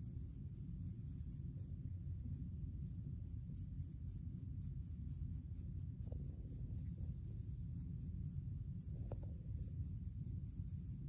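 Teeth of a plastic comb scratching across a short-haired, flaky scalp to lift dandruff, in repeated scraping strokes, over a steady low rumble.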